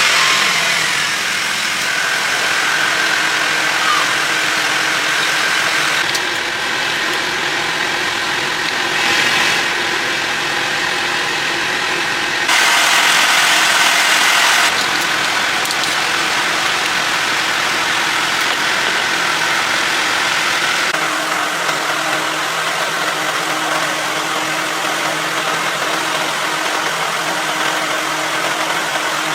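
Car engine running steadily just after being started, rising louder for a couple of seconds about halfway through.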